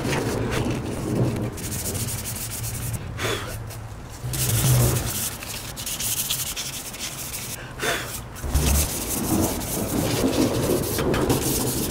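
Hand sanding with 320-grit sandpaper over dried spot putty on an aluminium alloy wheel rim: repeated back-and-forth rubbing strokes with a few brief pauses.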